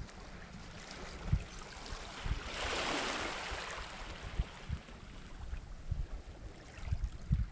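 Outdoor seashore ambience: wind buffeting the microphone in irregular low thumps. About two and a half seconds in, a soft rushing hiss swells and fades over roughly a second and a half.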